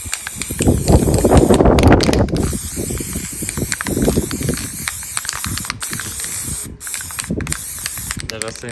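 Aerosol can of clear lacquer spraying in long hisses, broken by several brief pauses, with wind buffeting the microphone.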